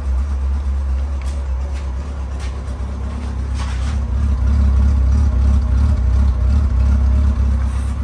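Honda Gold Wing GL1500's flat-six engine idling smoothly on its quiet stock exhaust, with the slight lope typical of these older Gold Wings, running just after the choke has been backed off. It runs somewhat louder from about four seconds in.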